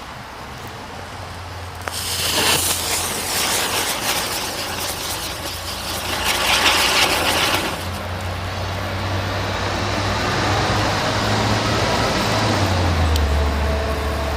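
Hanging flower basket birdcage firework burning: a hiss with dense crackling starts suddenly about two seconds in and peaks around seven seconds, then settles into a steadier hiss. A low steady hum runs underneath.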